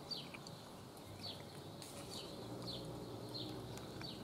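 A bird chirping repeatedly outdoors, short falling notes about once a second, over faint background noise.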